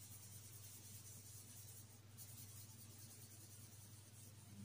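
Faint scratching of a pen or pencil colouring in circles on paper, over a low steady hum.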